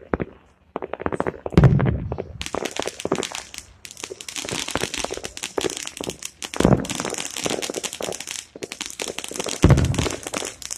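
Aerial fireworks shells bursting. There are three deep booms, about two, seven and ten seconds in, with dense crackling in between.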